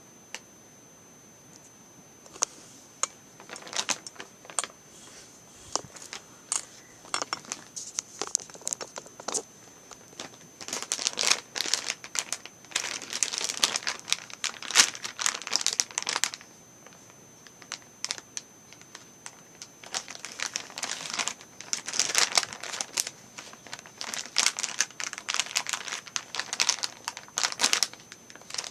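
Kinetic sand packaging crinkling and tearing as it is unwrapped by hand, in irregular bursts that start about two seconds in and are busiest in the middle and near the end.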